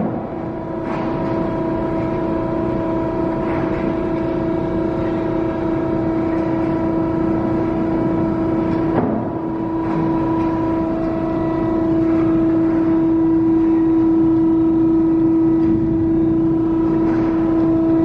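IMABE MP100 two-ram non-ferrous hydraulic baler and its steel-belt feed conveyor running: a steady machine hum with a strong, even whine. A few metallic clanks sound over it, the loudest about nine seconds in.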